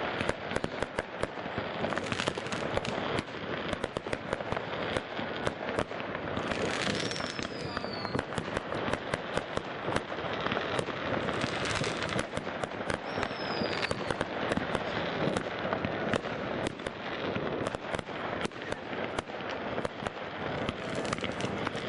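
Many fireworks going off at once: a dense, unbroken crackle of bangs and rocket bursts overlapping one another. A falling whistle sounds about seven seconds in, and another around thirteen seconds.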